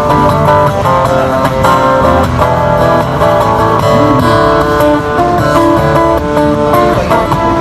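Steel-string acoustic guitar played fingerstyle, with a melody of plucked notes over a bass line.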